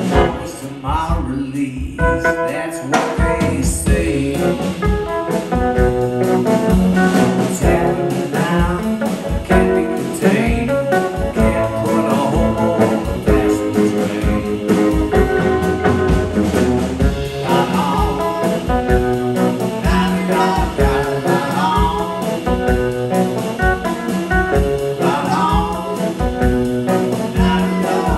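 Live band playing a blues song with a steady beat.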